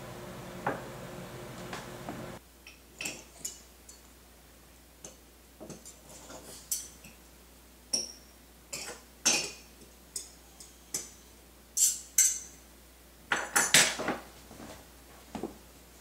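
Cutlery clinking and scraping against a ceramic dog bowl as chopped dog food is prepared: a long, irregular run of short clinks. A steady low hum cuts off about two seconds in.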